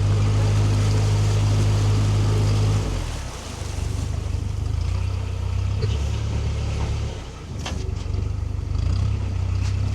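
Narrowboat's diesel engine running hard under throttle, then eased back about three seconds in and dipping again near seven seconds as the boat is manoeuvred against the wind.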